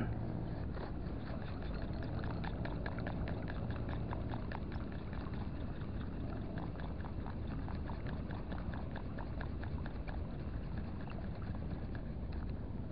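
Luke Herod 1000 ultralight spinning reel cranked to retrieve a cast spoon lure: a quick run of small clicks, thickest over the first few seconds and then fainter, over a steady background of wind and water noise.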